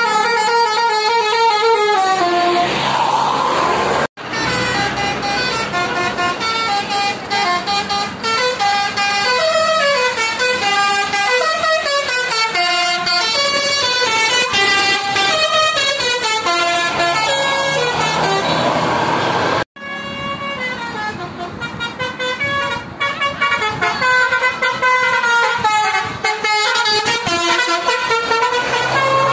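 Tour-bus 'telolet' multi-tone Basuri horns playing quick stepped tunes, several notes sounding together and jumping up and down in pitch. The sound cuts out for an instant twice, about four and twenty seconds in, then goes on.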